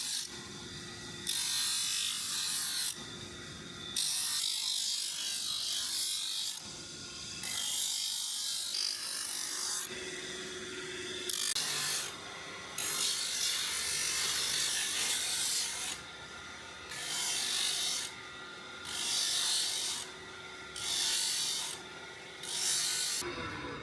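Steel knife blade worked by hand against an abrasive in repeated strokes: about ten rasping scrapes, each a second or two long, with short pauses between them.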